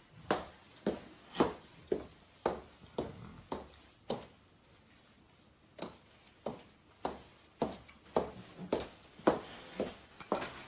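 Footsteps on a hard floor in a small room, about two steps a second, with a pause of a second and a half partway through.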